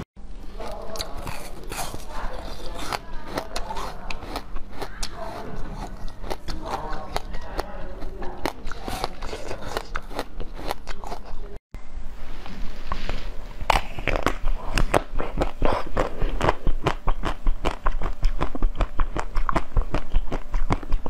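Close-miked eating: a person biting and chewing, with sharp crackling crunches. After a short break about halfway through, the crunching grows louder and denser.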